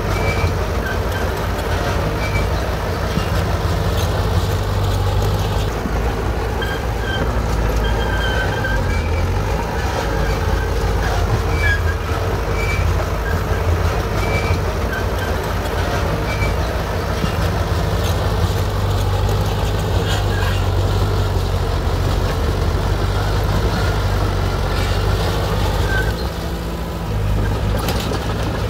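Heavy bulldozer's diesel engine running steadily under work, with short high-pitched beeps now and then.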